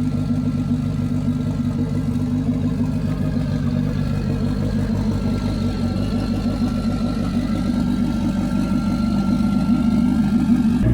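Car engine idling steadily, growing a little louder near the end.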